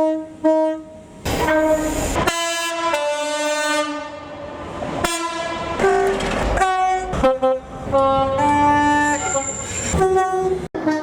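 Class 700 electric multiple unit's two-tone horn played as a long run of short notes at changing pitches, about fifteen tones one after another.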